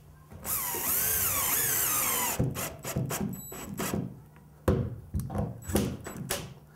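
Cordless drill/driver driving a drywall screw into sheetrock. The motor whines for about two seconds with its pitch wavering as the trigger is feathered, then gives several short blips near the end as the screw is eased in to just dimple the paper face.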